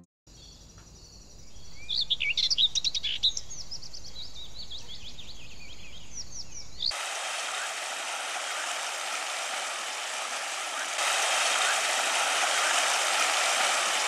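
Songbirds chirping, most densely between about two and three and a half seconds in, then an abrupt cut at about seven seconds to a steady rush of running water that grows a little louder about eleven seconds in.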